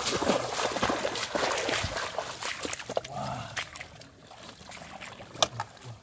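Water splashing and sloshing as feet wade through shallow water and wet grass, busiest in the first half. Near the end comes a single sharp knock as the catfish is set down in a metal basin.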